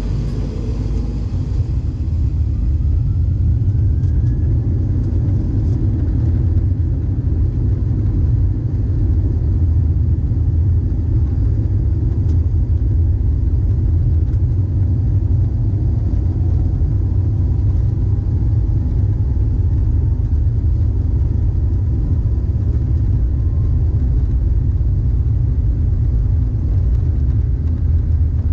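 Cabin noise inside an Airbus A320: a loud, steady low rumble of the engines and the airframe that holds even throughout.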